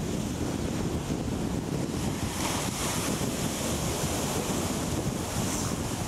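Wind buffeting the microphone over the steady wash of surf on a beach. A brighter hiss swells about two seconds in and eases off near the end.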